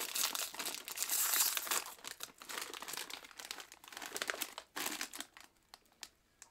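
Plastic snack bag of pretzel crisps crinkling as it is handled, dense for the first two seconds and then thinning to scattered crackles that die away near the end.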